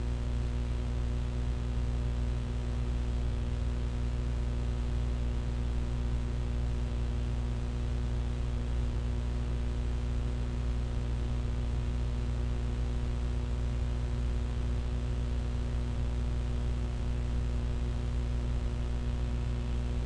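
Steady low electrical hum with many overtones under a constant hiss, unchanging throughout.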